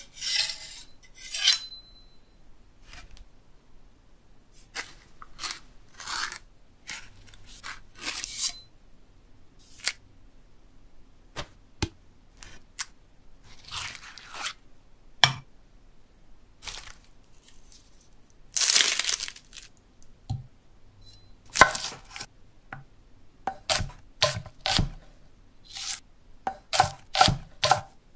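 A string of separate kitchen sounds from a large steel knife: the blade scraped across a sharpening stone with a brief ring, then scraping, scooping and cutting noises, and near the end a quick run of knife chops on a wooden block.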